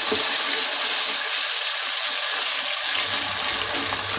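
Loud, steady sizzle of wet ground tomato puree just poured into hot oil and browned onions in a kadai.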